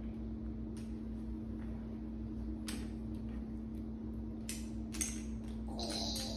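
A few light clicks of plastic building cubes being set onto a stacked tower, over a steady background hum.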